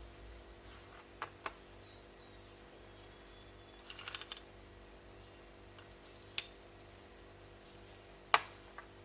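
A spoon tapping and clinking against a dish while honey is added: a few scattered sharp taps and a short rattle of small ticks, the loudest tap near the end. A faint steady hum runs underneath.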